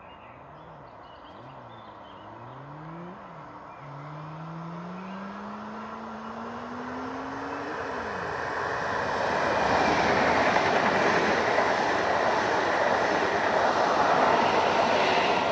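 ED161 Dart electric multiple unit approaching and passing, growing steadily louder into a rushing, rumbling noise of wheels on rail. In the first seconds a low whine glides up and down, then rises steadily in pitch.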